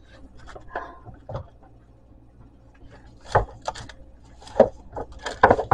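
Scattered light knocks and rubbing from the camera being handled and moved, with a few sharper knocks in the second half.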